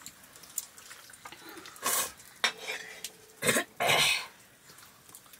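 A metal ladle scraping and clinking in a black iron wok and against metal plates as liquid is served, with a few short coughs around the middle.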